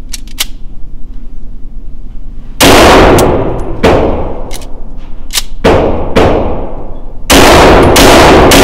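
A 9mm Glock 17L with a compensator firing at an indoor range: a few light clicks of the slide being worked to clear a stoppage near the start, then, from about two and a half seconds in, an irregular string of loud shots, each with a long echoing tail.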